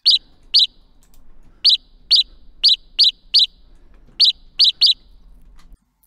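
Synthesized house sparrow chirps from a Phase Plant wavetable patch: ten short, separate notes at uneven intervals, each a quick bright chirp at about a sparrow's pitch. A low-mix reverb and a convolved bird-song sample give each chirp a slight tail and a touch of a real bird's tone.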